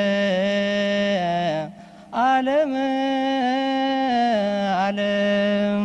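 A single low voice chanting an Oriental Orthodox liturgical melody in long held notes with small turns between them, breaking off briefly about two seconds in before going on.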